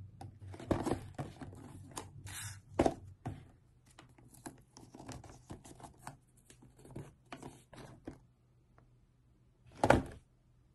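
Washi tape being pulled from the roll and torn, with paper envelopes and small cardboard gift boxes rustling and scraping in the hands as the tape is pressed on. Near the end, one loud knock as a box meets the desk.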